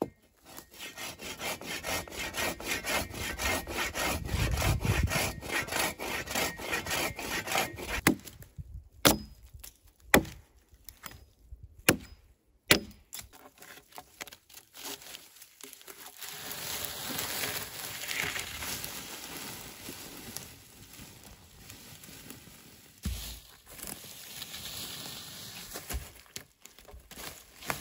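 Hand saw cutting through a thin log in quick back-and-forth strokes for about eight seconds. A few sharp knocks follow. Later comes a longer stretch of scraping and rustling as a log is dragged on a rope over the forest floor.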